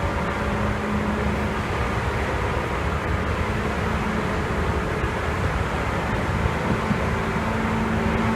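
Seibu 2000 series electric train car running, heard aboard: a steady rumble with a low droning hum that swells and fades, the unusual noise that the uploader suspects is a resonance.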